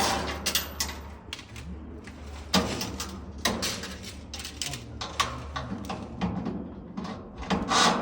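Irregular knocks, clanks and scraping from metal parts of a rooftop air-conditioning unit being worked loose and handled during dismantling, over a steady low hum.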